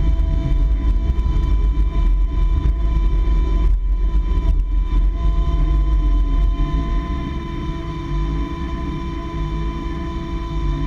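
Car engine heard from inside the cabin, running with a heavy low rumble and its pitch wavering slightly, a little quieter after about seven seconds.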